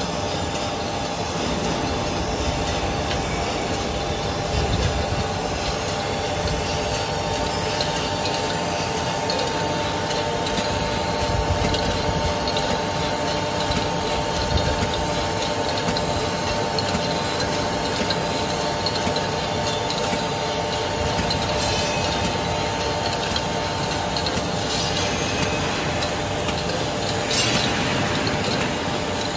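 Aluminium-tube latexing machine running: a steady mechanical rattle and hiss as tubes feed along its roller conveyor and rotary turret, with a faint motor whine that stops about three-quarters of the way through.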